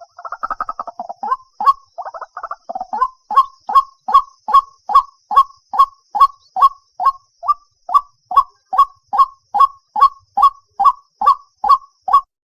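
White-breasted waterhen (dahuk) calling: a fast rattling chatter for the first three seconds, then a steady run of short, loud, downward-dropping notes, about two to three a second.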